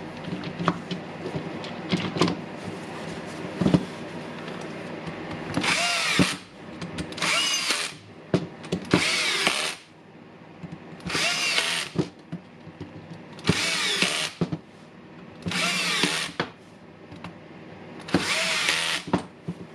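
Small clicks and rattles of parts being handled, then a cordless electric screwdriver driving in the housing screws: seven short runs of a second or less, their pitch bending as each screw seats.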